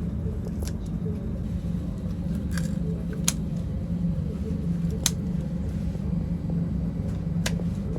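Steady low machine hum with a handful of sharp clicks at irregular intervals, the strongest about three and five seconds in.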